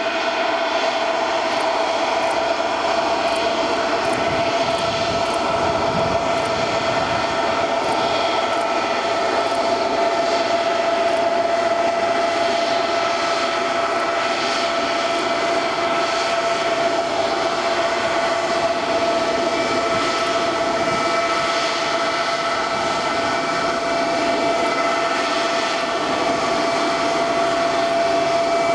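Vickers VC10's four rear-mounted Rolls-Royce Conway jet engines running at taxi power as the aircraft taxis: a steady jet rush with one clear whining tone held through it.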